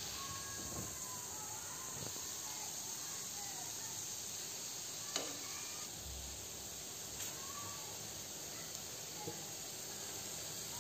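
Gulab jamun dough balls deep-frying in a pan of hot oil, the oil sizzling and bubbling steadily around them, with a single sharp click about five seconds in.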